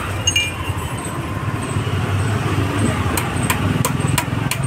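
Steady low rumble of passing motor traffic. About three seconds in, several sharp light taps follow in quick succession, from hand work on the scooter's parts.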